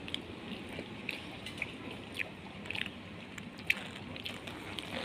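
Low room noise with a few soft, scattered clicks and taps of a plastic cup and tableware on a table.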